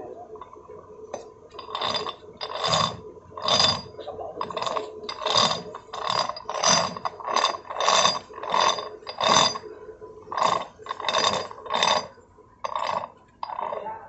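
Steel gear teeth of a rebuilt backhoe planetary gear set rattling and clicking as the center sun gear and planet gears are turned by hand in the housing. It comes in a steady run of strokes, about three every two seconds, starting a second or two in.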